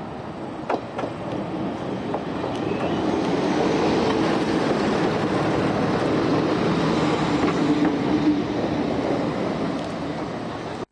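Narrow-gauge diesel railcar running close by, its engine and wheels growing louder over the first few seconds and then holding steady before easing off near the end. A couple of sharp clicks come about a second in.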